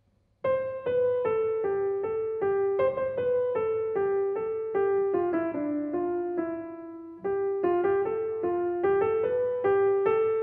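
Steinway & Sons grand piano playing solo, a melody of short, evenly paced notes starting about half a second in; around the middle a lower held note fades before the tune picks up again.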